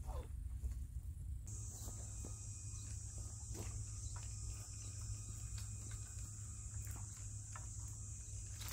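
Crickets trilling steadily in a high, even chirr that starts about a second and a half in. Beneath it runs a low rumble, with a few faint scattered clicks.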